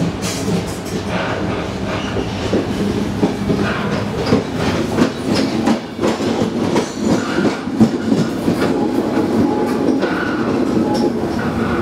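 Passenger train running along the track behind an FS E656 electric locomotive, heard from the end of the coach next to the locomotive: a steady rumble broken by irregular clacks and knocks from the wheels and running gear.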